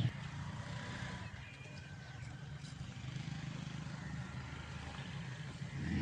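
Steady, fairly faint low hum of an engine running.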